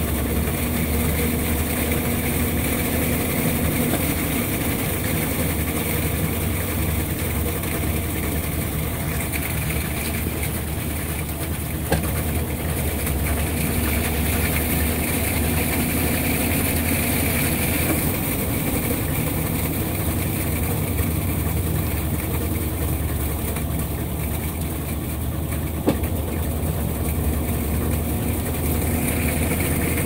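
Consul 16 kg top-load washing machine spinning its basket: a steady motor hum and drum whir, with two brief clicks about twelve and twenty-six seconds in.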